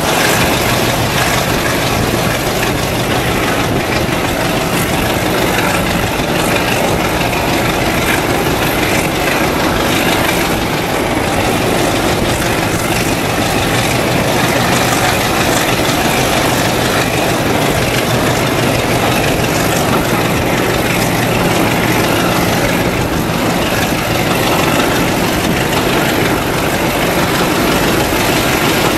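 Diesel locomotive engine running steadily, with the running noise of the train's coaches, heard from an open carriage window inside a brick tunnel.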